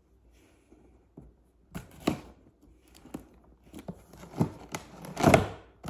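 A cardboard box being opened by hand. There are short tearing and scraping noises of tape and cardboard, with a few knocks and rustles of the packaging, the biggest about two seconds in and again near the end.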